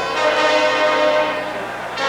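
College marching band playing a held brass chord that dies away near the end, with a new chord struck just after.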